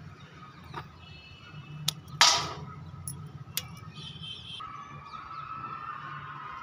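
Hand pruning shears snipping brinjal (eggplant) stems among the leaves: a few sharp clicks, with one louder snap and rustle about two seconds in.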